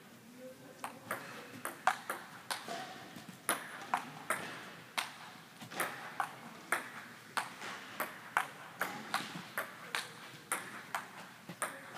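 Table tennis rally: a celluloid ping-pong ball clicking in quick alternation off the table top and the rubber-faced paddles, about two to three sharp clicks a second, starting about a second in.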